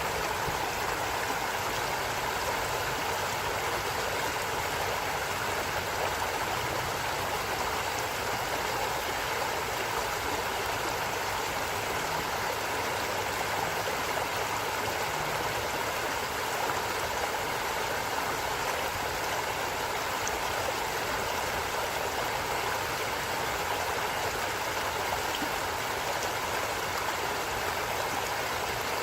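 A stream flowing: a steady, unbroken rush of water.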